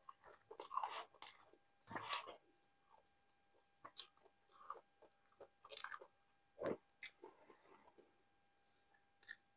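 Close-miked chewing and mouth sounds of a man eating naan with nihari: irregular chews and lip smacks with short pauses, the loudest about two seconds in and about two-thirds through.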